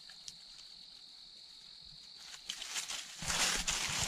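A steady high-pitched insect trill for the first two and a half seconds or so, then, from about three seconds in, louder footsteps crunching and rustling through dry fallen leaves.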